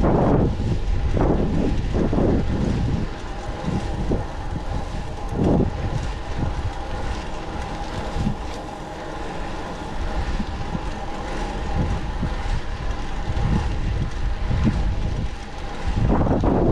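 Wind buffeting the microphone on a moving bicycle, with heavy gusts at the start and again near the end. A steady mid-pitched hum runs underneath through the calmer middle.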